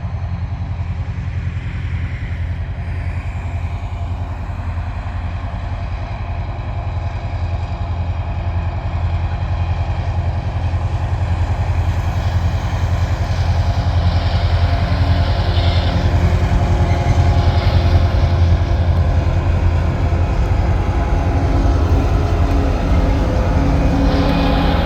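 TasRail 2051 diesel locomotive's engine running with a steady low drone, growing louder as the train approaches. In the second half, a higher hiss and rattle of wheels and wagons joins in.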